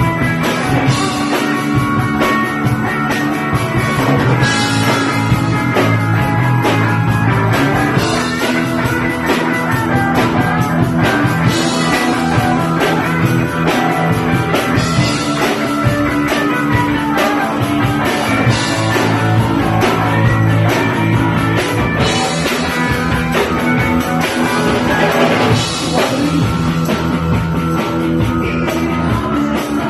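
Punk band playing live: guitar, bass and drum kit in a loud, steady rock song.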